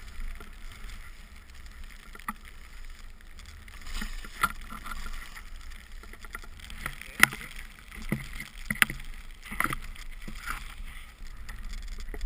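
Skis swishing through deep powder snow, with a steady low rumble of wind on the microphone. A few sharp knocks stand out, the loudest about seven seconds in.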